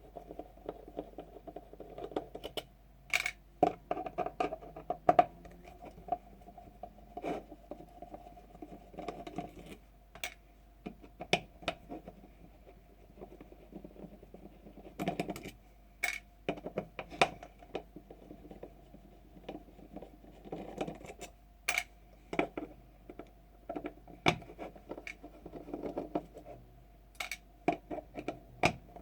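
An airsoft gun's gearbox being taken apart by hand: irregular clicks, taps and scrapes of small metal parts and a screwdriver.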